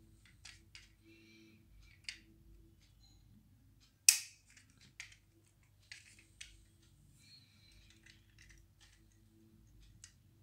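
Light clicks and taps of a die-cast metal model car being handled in the fingers and set down on a table top, with one sharp click about four seconds in, the loudest of them.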